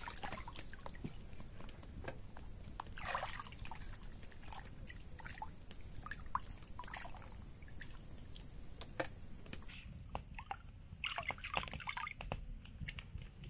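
Raw lamb meat being washed by hand in a plastic basin of water: intermittent sloshing, splashing and dripping as the pieces are swished, squeezed and lifted out, with a cluster of splashes near the end.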